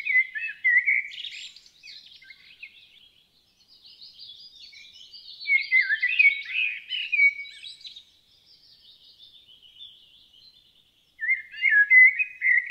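Common blackbird (Turdus merula) singing: loud fluty, warbled phrases near the start, about midway and near the end, each trailing off into quieter high twittering.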